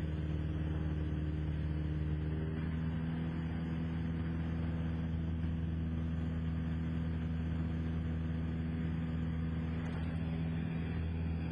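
Cessna 172 Skyhawk's four-cylinder Lycoming engine and propeller droning steadily in cruise, heard inside the cockpit. The engine note shifts slightly about two and a half seconds in.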